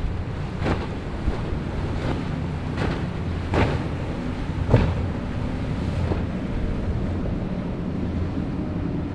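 Outboard engines of a sport-fishing boat running at speed through choppy inlet water, a steady low drone under a wash of spray and surf. Sharp slaps come about once a second as the hull slams down on the waves, the hardest near the middle. Wind buffets the microphone.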